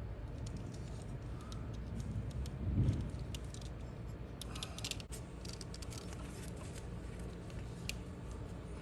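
Small clicks and rustling of wires being fed through a plastic wire sheathing by hand, over a steady low hum, with a dull bump about three seconds in.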